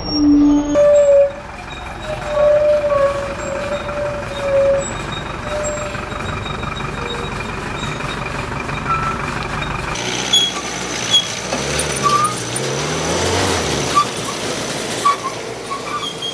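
Heavy truck running slowly through a hairpin turn, its brakes squealing in long, steady high tones during the first few seconds. About ten seconds in the sound changes to a noisier stretch of truck engine rising and falling in pitch, with short high squeaks.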